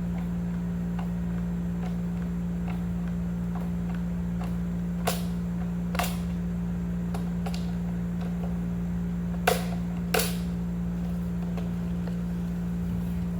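A steady low hum under a handful of short clicks and knocks from handling cabinet panels and hardware during hand assembly. The two loudest knocks come close together in the second half.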